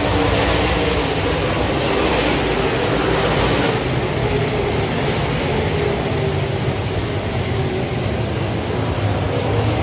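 A pack of dirt modified race cars running at speed past the grandstand, many V8 engines blending into one continuous roar. It is loudest and brightest from about half a second to four seconds in, as the cars pass closest.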